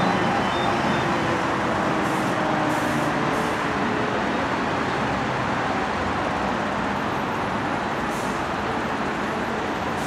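E57 motor siren winding down at the end of the fire alarm signal, its falling tone sliding lower and fading out over the first few seconds. Steady traffic noise runs underneath.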